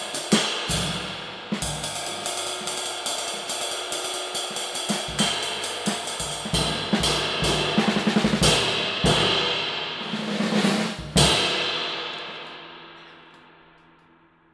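A 22-inch lathed cymbal played with sticks in a drum-kit groove with snare and hi-hat, its wash ringing over the strokes. About eleven seconds in it takes one hard final hit and rings out, fading away over the last few seconds.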